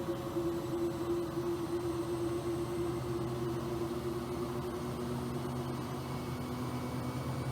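Bosch Aquasensor WFP3231 washing machine running mid-cycle: a steady motor hum over a soft hiss, with its tone shifting lower about halfway through.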